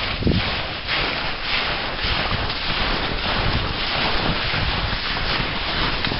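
Wind blowing hard across the camera microphone on an open glacier: a steady rush of noise with heavy low rumbling buffets.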